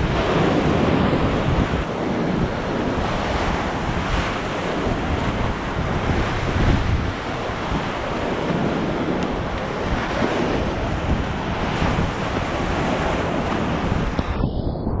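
Whitewater rapids heard from a kayak running them: a steady, loud rush of churning river water. Near the end the sound goes suddenly dull and muffled for a moment as water washes over the camera.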